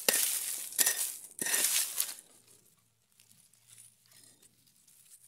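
Dry leaves and forest litter crunching and rustling as they are scraped aside, in a few quick strokes over about two seconds, then near quiet.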